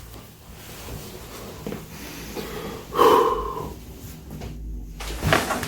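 A man's loud, short exhaling groan about three seconds in, fading within a second. A sharp knock comes near the end.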